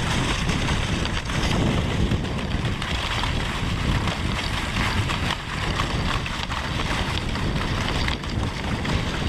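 A wooden dog sled running steadily over snow: its runners scrape and slide while wind buffets the helmet camera's microphone.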